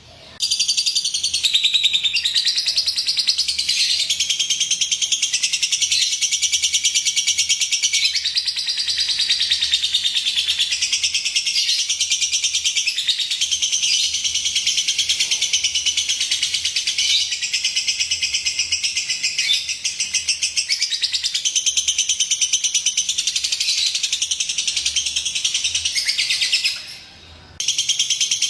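Lovebird singing a long, unbroken run of rapid high-pitched chirps, pausing only briefly about a second before the end.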